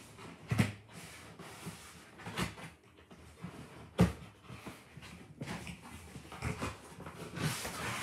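Cardboard packaging scraping and rustling as an inner box is slid up out of its outer box, with two sharp knocks, about half a second in and about four seconds in.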